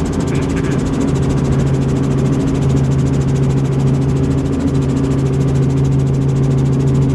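Helicopter in flight: the steady drone of its engine and rotor, with a low hum that grows stronger about a second in.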